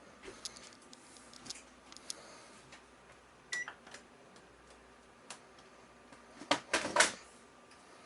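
Scattered light clicks and knocks of hard objects, a short beep about three and a half seconds in, and a louder clatter near the end.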